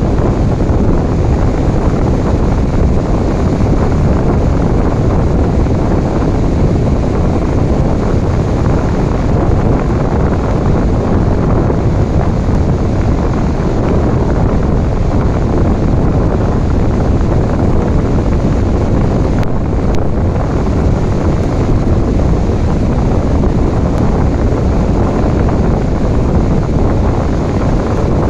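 Ocean waves, a steady loud wash of noise heaviest in the low end, with no clear rise and fall of single breakers.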